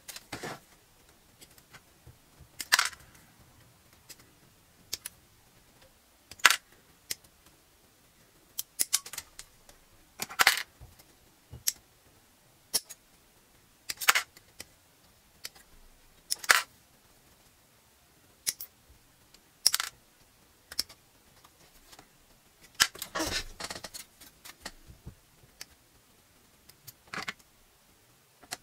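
Hobby nippers snipping parts off a gold plastic model-kit runner: sharp single clicks every second or two, some in quick pairs, with a short patch of denser plastic clattering about 23 seconds in.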